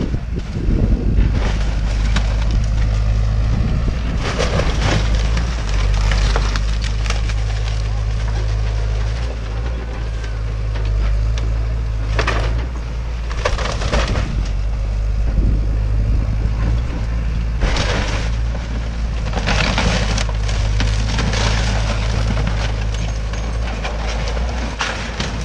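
Hyundai excavator demolishing a wood-framed house: the machine's engine runs with a steady low hum while its bucket and arm tear into the structure, with repeated bursts of wood cracking, splintering and crashing as pieces break and fall.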